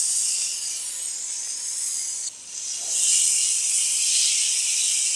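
Yogurt-marinated chicken leg pieces sizzling loudly as they are laid on a hot, oiled stovetop grill pan. The hiss dips briefly a little past two seconds in, then swells again as the chicken is pressed down.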